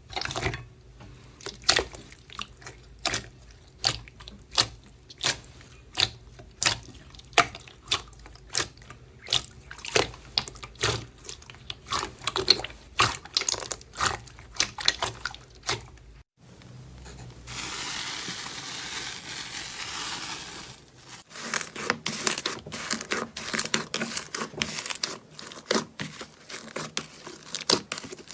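Slime being squeezed and poked by hand, making a run of sticky clicks and pops that come faster as it goes on. Partway through there is a break and a steady hiss lasting about three seconds, then the popping and crackling start again.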